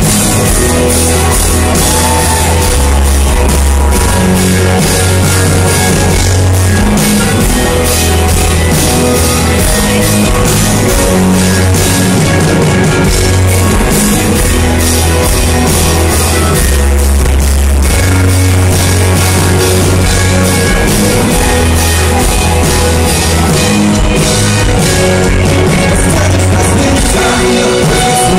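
Pop-rock band playing live through a PA, drums and guitars with a heavy bass line that booms into the recording.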